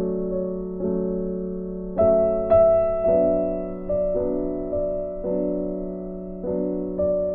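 Background piano music: soft chords struck about once a second, each note fading away before the next.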